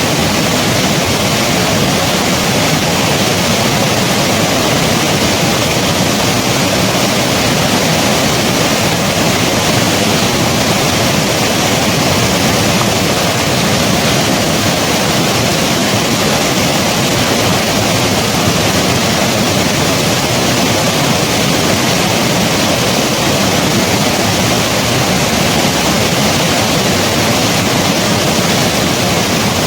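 Snow-melt river rushing over rocks: a loud, steady roar of fast water.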